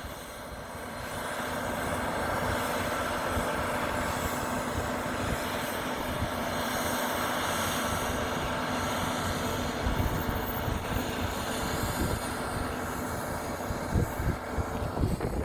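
Mount Washington Cog Railway train running: a steady mechanical hum and rumble that builds over the first couple of seconds, then holds.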